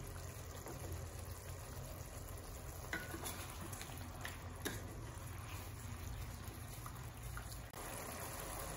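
Thick chilli-and-mango gravy simmering in a wok while a wooden spatula stirs it, with a few light knocks of the spatula against the pan midway.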